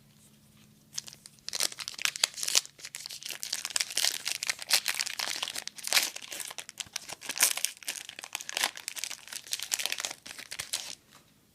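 Trading card pack wrapper being torn open and crinkled in the hands: dense crackling that starts about a second in and stops about a second before the end.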